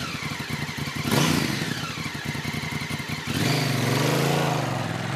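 Motorcycle engine running with a fast, even firing pulse, then revving up and down a few times from about three seconds in.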